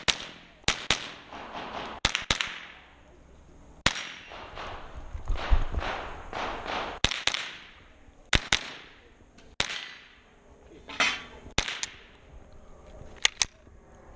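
.22 rimfire rifle shots in a practical-shooting course of fire, about fifteen sharp cracks. Most come in quick pairs a fraction of a second apart, two on each target, with pauses of a second or more between groups.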